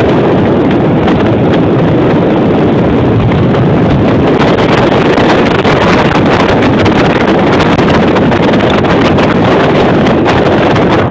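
Loud wind buffeting the microphone of a camera held out the window of a moving car, with a steady low rumble underneath. It drops away sharply at the very end.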